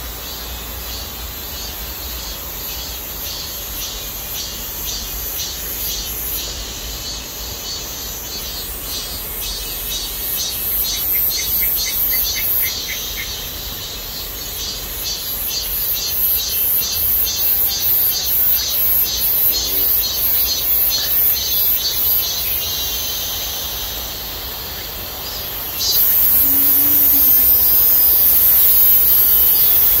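Cicadas singing in persimmon trees: a rhythmic, pulsing high-pitched chorus that swells through the middle. About 26 seconds in, a louder steady high buzz suddenly starts and runs on.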